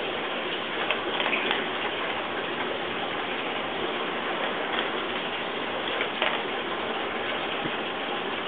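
Chocolate Labrador eating dry kibble off the floor: irregular crisp crunches and clicks as it chews, over a steady background hiss.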